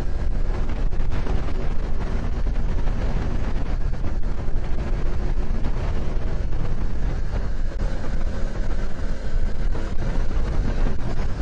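Motorcycle riding at highway speed: a steady rush of wind over the microphone, heaviest at the very bottom, with engine and road noise beneath it.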